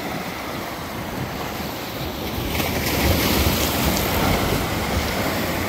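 Waves surging and crashing against the boulders of a rock breakwall, with a bigger wave breaking about halfway through. Wind buffets the microphone.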